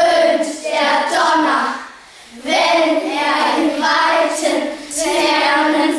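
A class of children reciting a German alliterative poem together in unison chorus. The chant comes in rhythmic phrases, with a short break about two seconds in.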